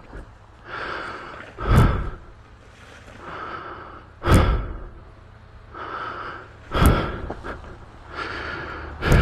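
A rider breathing hard, close to a helmet-mounted microphone, out of breath from heavy exertion: each slow drawn-in breath is followed by a loud exhale blowing across the mic, about every two and a half seconds, four times.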